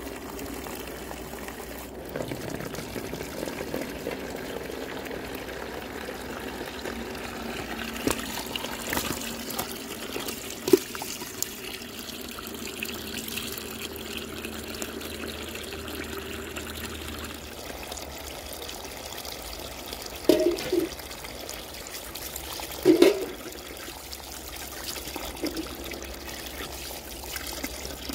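A steady stream of water pouring and splashing, first onto wet grass and then into a plastic basin of fish that fills and spills over its rim. A few brief louder bumps stand out, around the middle and twice later on.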